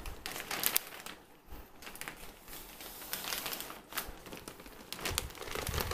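Plastic poly mailer bag crinkling and rustling in fits and starts as it is handled and opened by hand.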